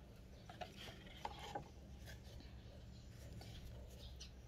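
Faint clicks and light rubbing from plant cuttings and a plastic water bottle being handled, mostly in the first second and a half.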